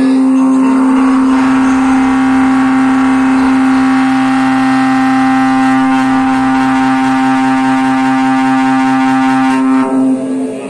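A man's voice holding one long, steady chanted note, breaking off about ten seconds in and dying away in the hall's echo.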